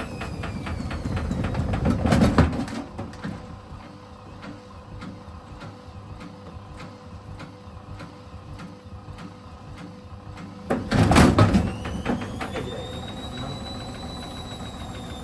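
Elin washing machine spinning with its door open: the drum runs with a fast even rattle while the motor's whine falls in pitch early on, then rises again near the end. Twice, about two seconds in and about nine seconds later, there is a loud burst of banging and rattling, as wet clothes are thrown into the spinning drum.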